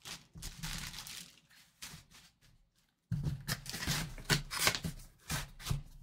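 Clear plastic bag around a jersey crinkling and rustling as it is handled, then from about three seconds in, cardboard boxes being shifted and set down with rustling and soft knocks.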